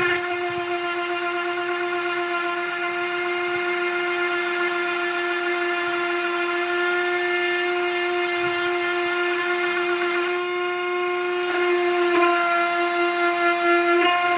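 Electric sander running steadily with a constant whining tone; its loudness wavers over the last couple of seconds.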